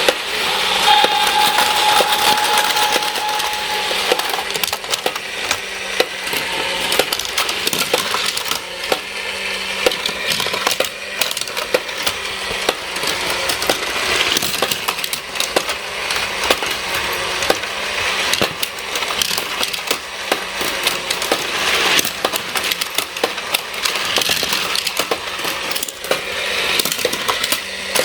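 Battery-powered Plarail toy trains running on plastic track, a dense clatter of small plastic clicks over a faint steady hum. A steady tone sounds for about three seconds near the start.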